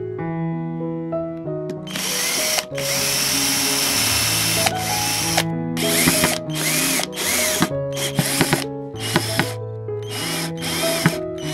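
Cordless drill-driver driving screws into a wooden block. It runs once briefly, then for about two seconds, then in a string of short bursts, each with a quick rising whine. Background music plays throughout.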